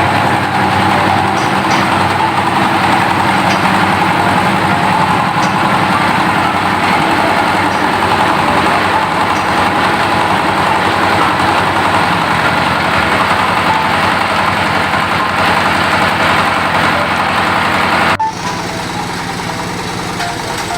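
Meatball meat-grinding machine running with a steady engine-like drone. About eighteen seconds in the sound drops suddenly and changes, becoming quieter.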